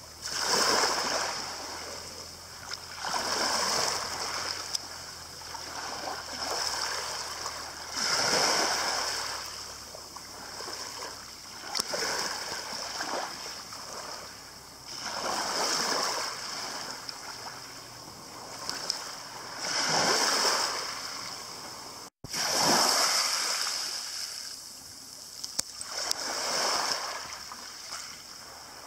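Small waves washing onto a pebble beach at the water's edge, each wash swelling and fading every three to four seconds. The sound drops out for an instant about two-thirds of the way through.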